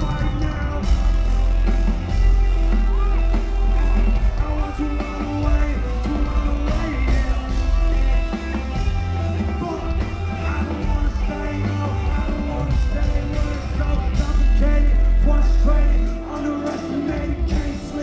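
Loud live rock music with a heavy, pounding bass and voices singing and yelling over it. The deep bass cuts out near the end.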